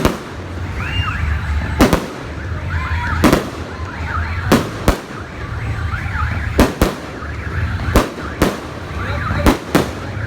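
Aerial fireworks bursting: about a dozen sharp bangs at irregular intervals, some in quick pairs, with high wavering tones rising and falling between them.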